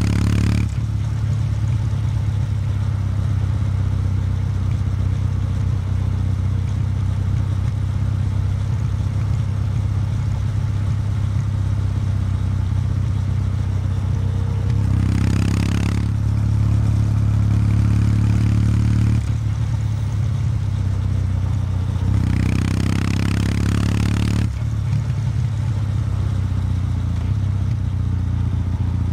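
Kawasaki W800 Street's air-cooled parallel-twin engine running through its stock exhaust at a steady low speed of around 2,000 rpm while riding. Twice, once in the middle and once later on, a brighter rasp rises over it for a second or two.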